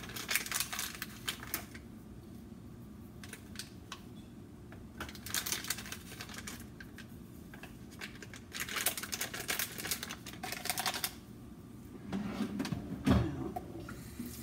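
Dried parsley being shaken out of a spice container over hamburger patties: three bursts of rapid rattling clicks, with a single knock near the end.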